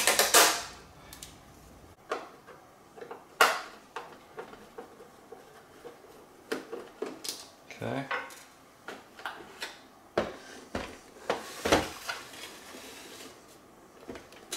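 Clicks, knocks and clatter of hard plastic housing parts and a screwdriver on a stone countertop while a robot-vacuum clean base is unscrewed and pried apart. The knocks come irregularly, the loudest at the very start and about three and a half seconds in.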